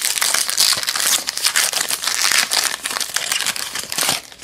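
Plastic wrapper of a trading card pack crinkling as it is torn open and pulled off the cards, a dense crackle that stops about four seconds in.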